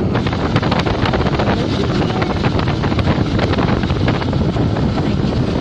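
Motorcycle of a sidecar tricycle running at road speed, a steady engine and road rumble, with wind buffeting the microphone throughout.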